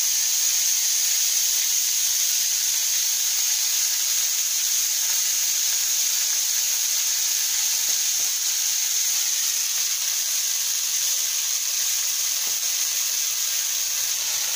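Chopped, freshly washed fenugreek leaves sizzling in hot oil in a kadai, a steady hiss as the water on the leaves fries off.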